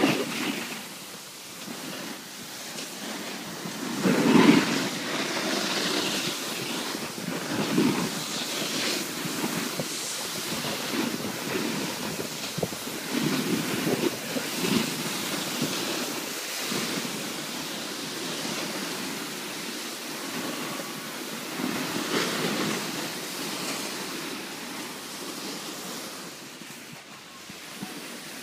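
Wind rushing over the microphone and a snowboard scraping across groomed snow while riding downhill, coming in uneven surges, the loudest about four seconds in.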